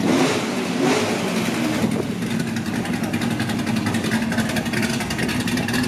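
A car engine idling steadily, an even low hum.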